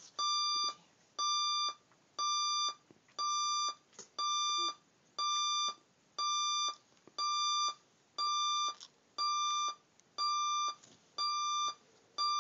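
Alarm clock beeping steadily, one electronic beep about every second, each lasting about half a second.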